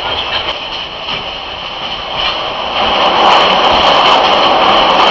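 Passenger train running, heard from inside the carriage: a steady running noise of the train that grows louder about three seconds in.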